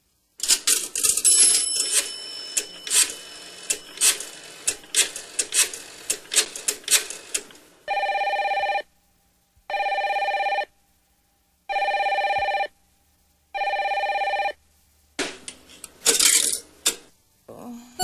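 Electronic keyboard sound effects: a clatter of sharp clicks and knocks, then a telephone ringing four times, each ring about a second long, then a few more clicks.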